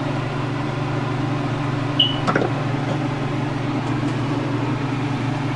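Steady low hum of a kitchen appliance, with a brief clink and a light knock about two seconds in.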